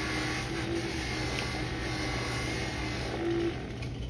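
Bench buffing motor running, its wheel polishing the brass of a trombone bell held against it, with a steady hum and whir. The buffing noise eases down near the end as the bell comes away from the wheel.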